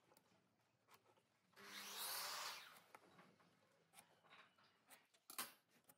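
Near silence with one soft scraping rub, lasting about a second and starting a little over a second in, as marking tools (a steel combination square and a pen) move on a hardwood slab. A few faint taps follow near the end.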